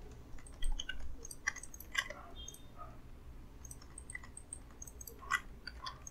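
Computer mouse clicking a handful of times at irregular intervals, short sharp clicks, the loudest about half a second in and again about five seconds in.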